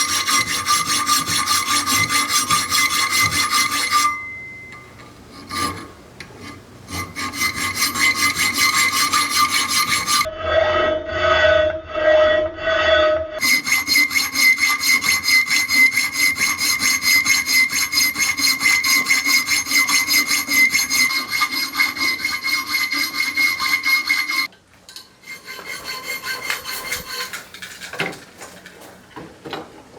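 Rapid rasping, rubbing tool work with a steady ringing tone, in several long stretches broken by short pauses.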